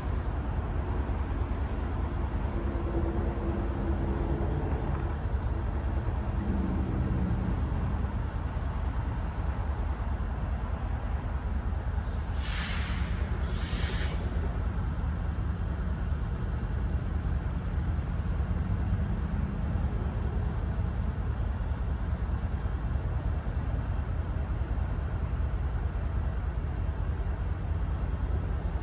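Steady low rumble of a large diesel vehicle idling, with shifting low engine tones in the first few seconds. About halfway through come two short hisses of air released, a second apart.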